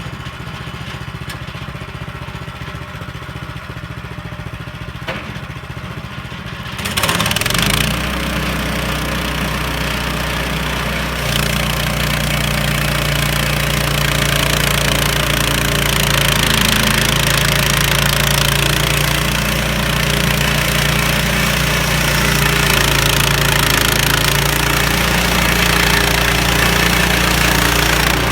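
Sawmill engine idling, then throttled up about seven seconds in to a louder, steady run; a few seconds later a harsher, hissing noise joins it and holds to the end.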